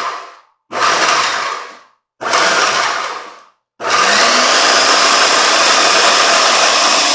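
A GE food processor's motor chopping a wet jerk marinade in short pulses, each winding down: the tail of one pulse, two more pulses of about a second each, then a steady run of about four seconds from roughly four seconds in.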